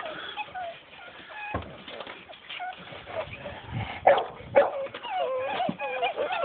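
A litter of 55-day-old puppies whimpering and whining in many short, wavering high cries, with two louder sharp cries about four seconds in.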